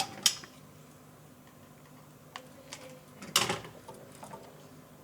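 Sparse light clicks and taps of small hand tools being handled at an electronics workbench, with a louder short tap a bit over three seconds in, over a faint steady hum.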